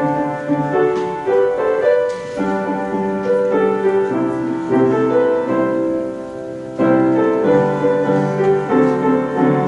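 A keyboard instrument playing slow, sustained chords that change every second or so, over long-held low notes.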